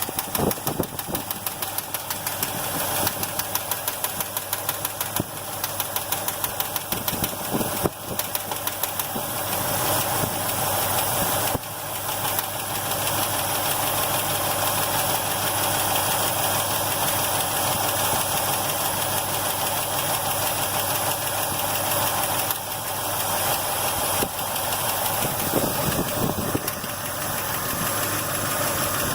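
Engine idling with a rapid, even ticking from the valvetrain, the tick of a noisy lifter. The ticking is sharpest for the first several seconds and smooths out later.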